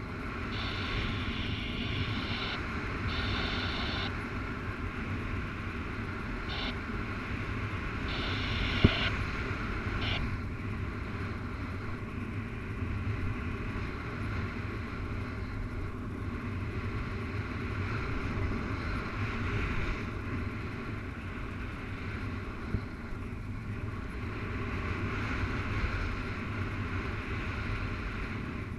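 Airflow rushing over the camera microphone of a paraglider in flight: a steady low rumble. For the first ten seconds a high-pitched tone sounds on and off, and there is a sharp tap about nine seconds in.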